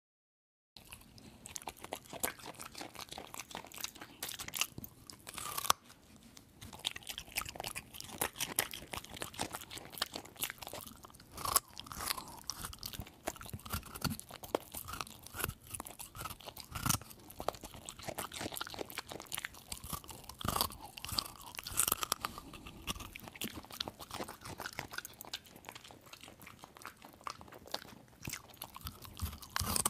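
A dog wolfing its food, crunching and chewing in quick, irregular crunches with now and then a louder bite. It starts about a second in.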